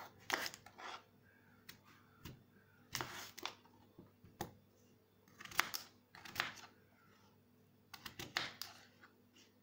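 Kitchen knife chopping peeled raw potatoes into chunks on a plastic cutting board: quiet, irregular knocks of the blade going through the potato and striking the board, about one every half second to second.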